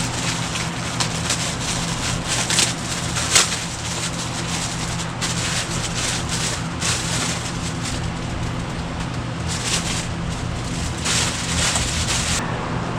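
Plastic packaging crinkling and rustling in irregular crackles as the boat's hand air pump is unwrapped, over a steady low hum.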